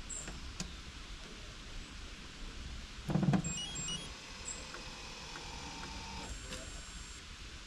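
Automatic dog ball launcher: a short thump about three seconds in, followed by short high electronic beeps and a faint motor hum.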